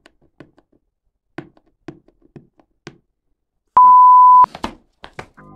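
Fingers picking and scratching at the plastic wrap of a cardboard phone box, making faint scattered clicks and taps. Nearly four seconds in, a single loud, steady electronic beep sounds for under a second. A few more clicks follow, and music starts at the very end.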